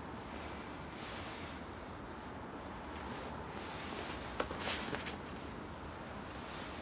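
Quiet outdoor night ambience with a steady low hum, and a brief rustle with a few small clicks about four and a half seconds in.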